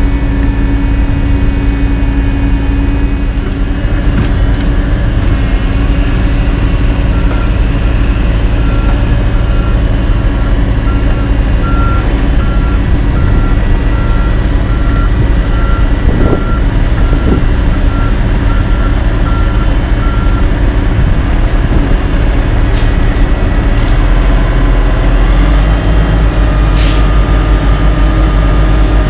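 Kenworth tandem dump truck's Cat diesel engine running steadily as the truck backs up, its backup alarm beeping about once a second for around thirteen seconds. A brief air-brake hiss comes near the end.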